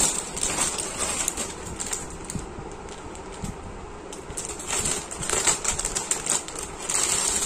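Clear plastic poly bag crinkling and rustling as it is handled and opened, with louder crinkles from about five seconds in.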